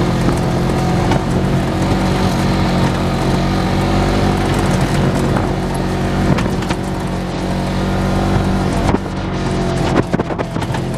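Side-by-side UTV engine running at a steady speed while driving a rough dirt trail, heard from inside the open cab. From about nine seconds in, short knocks and rattles join it as the machine goes over bumps.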